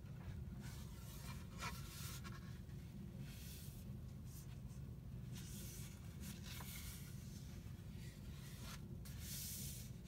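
Paper pages of a hand-bound book being turned and slid by hand: several soft rustles and scrapes of paper over a faint, steady low hum.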